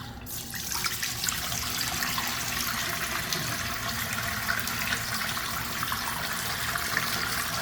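Water from a faucet turned on, then running in a steady stream.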